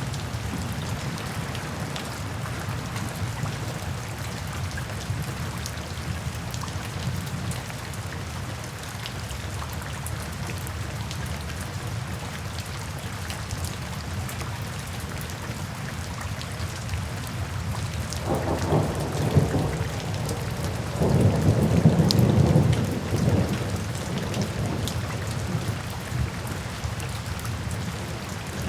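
Steady rainfall, with two rolls of thunder about 18 and 21 seconds in, the second louder and longer.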